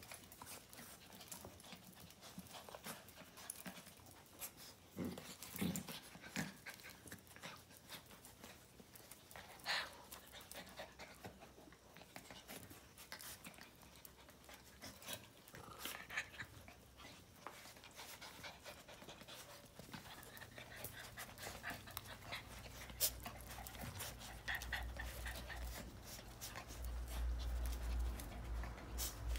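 Several small dogs wrestling in play, panting, with scattered short clicks and scuffles throughout and a few brief louder bursts.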